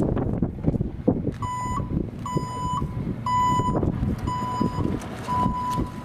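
Reversing beeper of a Goupil G3 electric utility vehicle: a high beep about once a second, each beep about half a second long, starting a little over a second in, over wind noise on the microphone.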